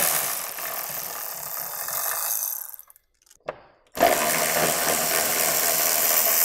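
A ratchet turning a 13 mm socket to back out panel bolts. It runs in two spells of about three seconds each, with a short pause and a single click between them.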